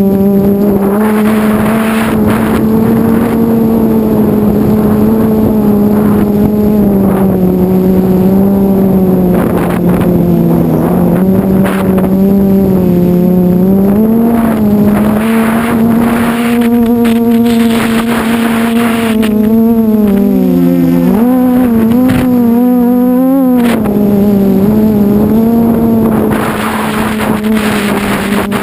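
QAV500 quadcopter's brushless motors and propellers buzzing steadily in flight, heard from the onboard camera, the pitch wavering as the throttle corrects, most between about two-thirds and four-fifths of the way through. A steady rush of wind on the microphone runs under it.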